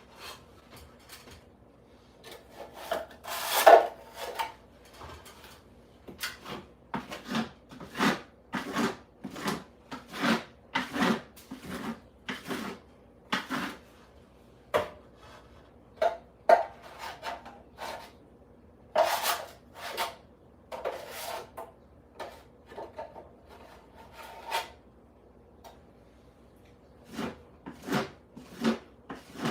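Repeated rasping strokes of a hand tool worked across a surface, about one to two a second, pausing briefly near the end.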